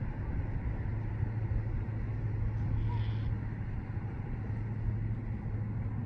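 Low, steady hum of passing road traffic, a little louder in the middle.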